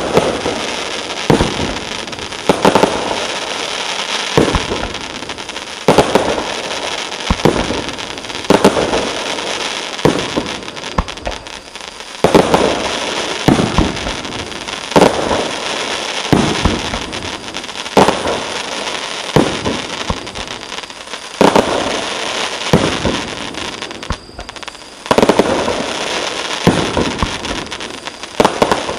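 'Crackling Mine' fireworks cake (16 shots, 50 mm tubes) firing: a sharp shot every second or two, each followed by a long spell of dense crackling from the stars.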